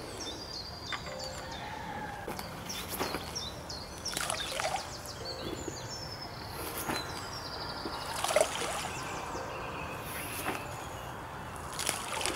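Handfuls of bait thrown from a bucket splashing into a pond, several separate splashes a second or two apart, over songbirds singing.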